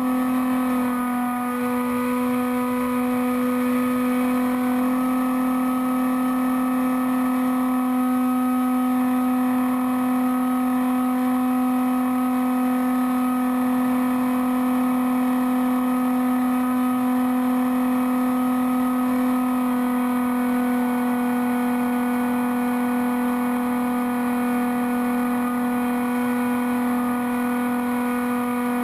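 Bixler foam RC airplane's electric pusher motor and propeller running at a steady cruise throttle: a constant buzzing hum picked up by the onboard camera, with only a slight shift in pitch about a second in.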